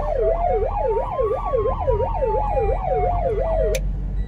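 A siren wailing in a fast warble, about three sweeps a second, over a second tone that slowly rises and then falls. It cuts off abruptly near the end, over the low rumble of the car on the road.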